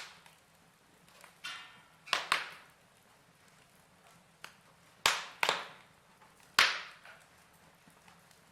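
Fire crackling: about seven sharp snaps and pops at irregular intervals over a faint hiss, the loudest ones near the middle and about two-thirds of the way in.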